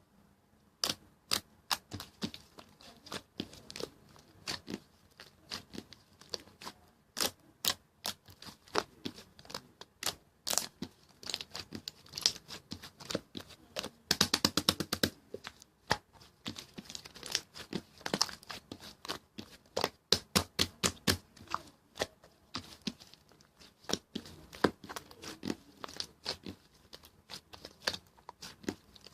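Pastel green slime being played with by hand, giving irregular sharp clicks, pops and crackles, with a dense run of rapid crackling about halfway through.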